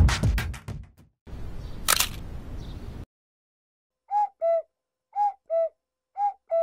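Digital alarm clock going off: three pairs of short electronic beeps about a second apart, each pair a higher note then a lower one. Before the beeps come the last drum hits of a music sting and a short hiss with a click.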